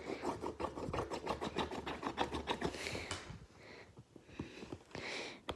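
Rapid scratching and scraping on plastic shrink-wrap over a cardboard box, a small hand-held piece rubbed back and forth to tear the wrapper open. The quick strokes run for about three seconds, then give way to a few slower, softer rubs.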